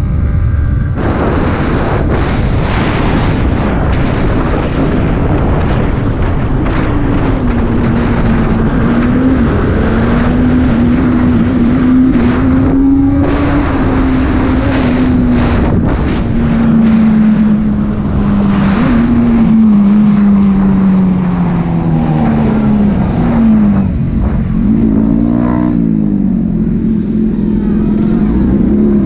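Yamaha R15 V3's single-cylinder engine running at speed, with heavy wind rush on the microphone. The engine note holds fairly steady, sags slowly, and near the end dips and climbs several times in quick succession, as with gear changes while the bike slows.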